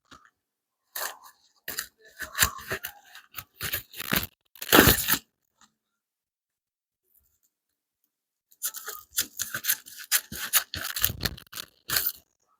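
Irregular crinkling and rustling handling noise in two spells, separated by a pause of about three seconds.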